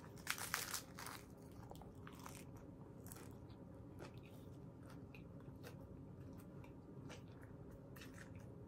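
Crisp crunching of a hard-shell corn taco being bitten: a burst of cracks in the first second, then quieter chewing with scattered faint crunches.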